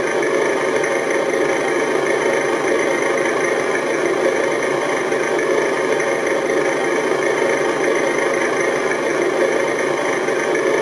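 Electronic engine sound module in an RC truck playing a simulated truck engine idling steadily.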